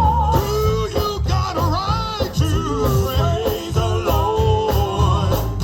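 Up-tempo gospel praise music: organ, drums and bass guitar playing with a driving beat, with singing over it.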